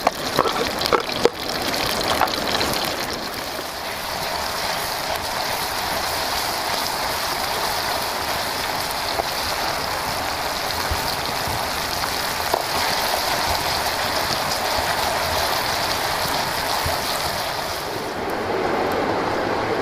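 Chopped chillies, tomato, shallots, garlic and spring onion sizzling in hot oil in a cast-iron skillet over a wood fire: a steady hiss, with a few clicks of a wooden spatula against the pan in the first couple of seconds. Near the end the hiss turns duller.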